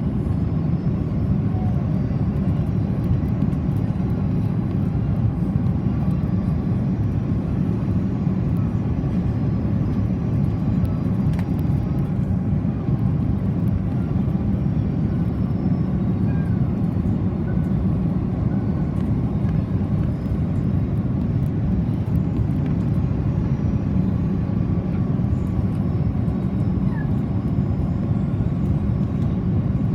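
Steady cabin noise inside an Airbus A330-300 airliner in flight: a constant low rumble of the engines and rushing air, with a faint, steady high whine over it.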